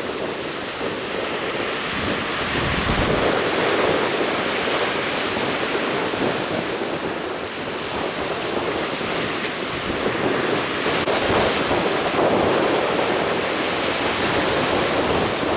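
Rough sea waves and strong wind buffeting the microphone: a steady rushing noise, with heavier rumbling gusts about three seconds in and again near ten seconds.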